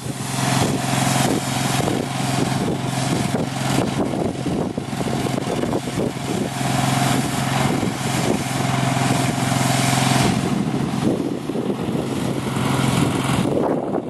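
Fire truck's engine running steadily to drive its water pump, under the loud hiss of water jetting from a hose nozzle. Both die away near the end.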